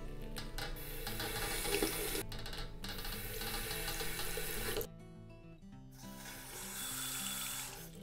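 Water running from an old Peerless two-handle bathroom faucet as its stiff handle is worked, the flow starting and stopping a few times. The handle turns with heavy friction, which wore a tear in its rubber seat and caused the leak. Background music plays underneath.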